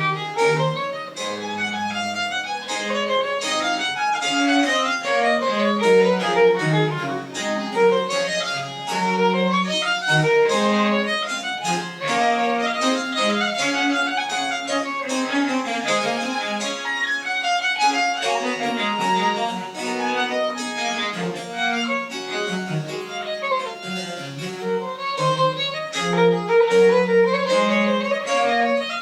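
Baroque chamber ensemble playing live, a violin leading with quick moving lines over a lower bass part, in the French Baroque style.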